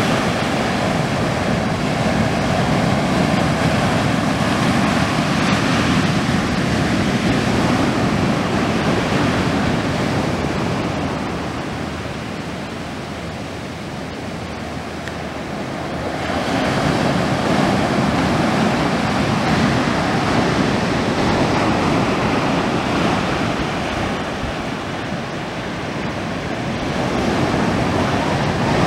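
Atlantic surf breaking on a rocky shore and washing back: a continuous rushing that swells with each set of waves, easing into quieter lulls about halfway through and again near the end.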